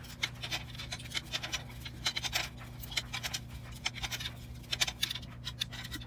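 An M3 tap turned with pliers to cut threads into the plastic of a droid's head: irregular scratchy clicks and scrapes as the tap bites and is re-gripped, several a second.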